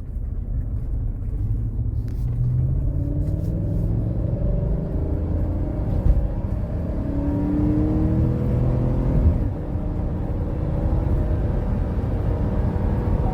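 2015 Chevrolet Tahoe's V8 engine pulling under light-to-moderate throttle, its pitch rising as the SUV speeds up, over a low road rumble. It runs smooth with no audible misfire, which the mechanic calls clean even when pressed.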